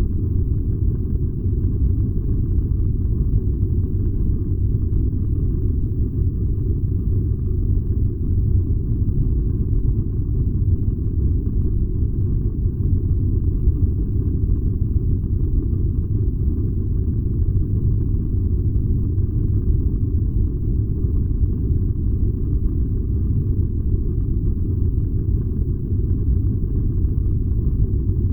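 Furnace running with a steady low rumble, even throughout with no clicks or changes.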